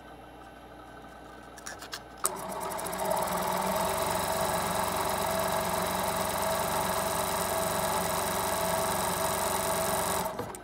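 Juki DDL-9000c direct-drive industrial lockstitch sewing machine run with no fabric under the foot. After a few clicks it starts about two seconds in, speeds up over a second, runs steadily at speed for about seven seconds, then stops abruptly. This is a test run to check how much oil the bobbin hook throws.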